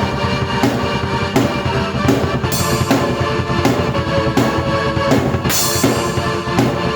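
Drum kit and keyboard played at the same time by one player: a steady beat of bass drum and snare under held keyboard chords, with cymbal crashes about two and a half and five and a half seconds in.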